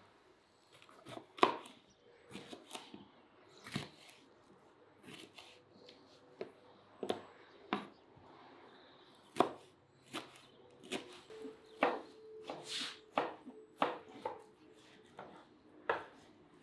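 Kitchen knife strokes on a wooden cutting board: irregular sharp knocks as a green bell pepper is sliced, and later as raw lamb and vegetables are cut.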